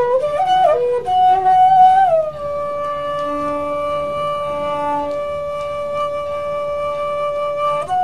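Slow flute melody playing as background music. About two seconds in it settles on one long held note lasting over five seconds, then moves up to a new note just at the end.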